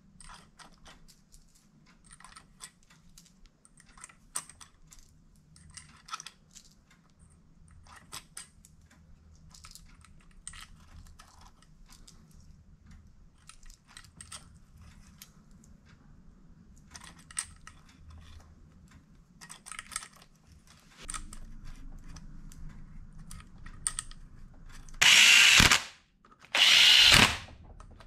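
Small metal clicks and clinks of clutch springs and bolts being handled and started by hand on a Yamaha Banshee clutch. Near the end, a cordless DeWalt drill-driver spins twice, about a second each time, running the clutch bolts down.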